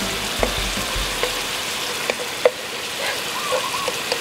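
Garlic-and-chili sauce sizzling as it fries in a pan while a slotted metal spatula stirs it, with a few light clicks of the spatula against the pan.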